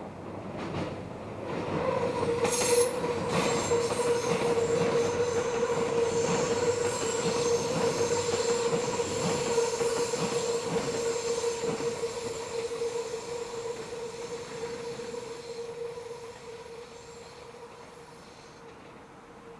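Meitetsu electric train rounding a curve, its wheels squealing against the rail in one long steady high-pitched tone. A few sharp clicks from the wheels come about two seconds in, and the squeal fades over the last several seconds as the train moves off.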